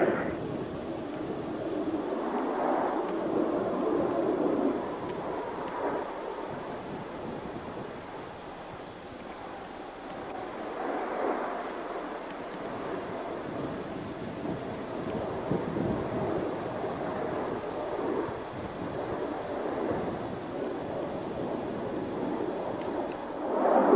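Faint, distant jet noise from Blue Angels F/A-18 Hornets, swelling and fading a few times as the jets fly their manoeuvres far off. A steady high-pitched whine runs under it.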